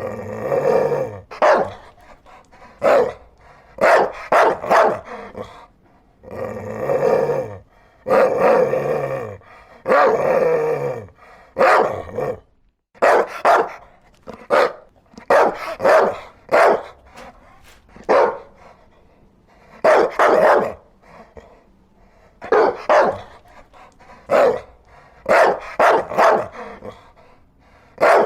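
Dog barking repeatedly: several longer, drawn-out barks in the first half, then short barks, singly or in quick pairs, at irregular intervals.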